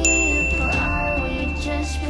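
A single bright electronic chime sounds at the start and rings on for about two seconds. It is the workout timer's signal that the exercise interval is over, heard over background pop music.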